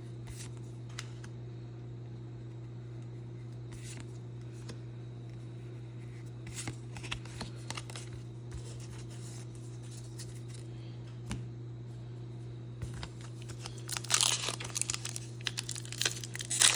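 Scattered light crinkles and clicks of trading cards and foil wrappers being handled. About three-quarters of the way through, a foil booster pack is torn open and its wrapper crinkles loudly. A steady low hum runs underneath.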